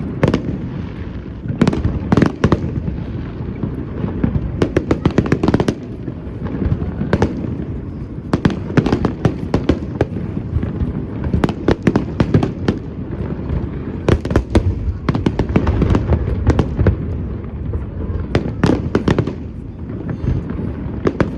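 Fireworks display: a rapid, continuous barrage of sharp bangs and crackles over a steady low rumble, with clusters of close-spaced reports throughout.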